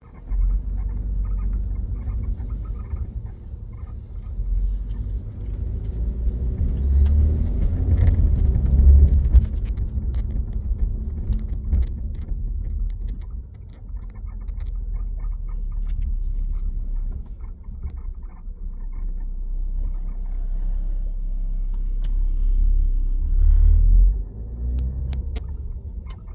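Low road rumble inside the cabin of a moving 2020 BMW M340i, with scattered short squeaks and creaks from behind the seat. The squeak comes only when the car moves on its suspension; its cause is unknown.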